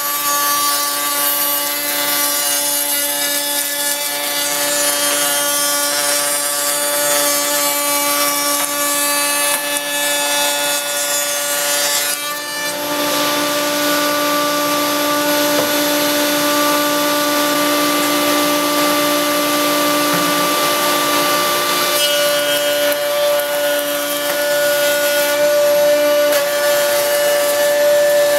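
Router table bit running steadily while cutting a tongue-and-groove profile in birch boards fed past it. The sound changes about halfway through as one board clears the bit, and again near the end as the next board is fed in.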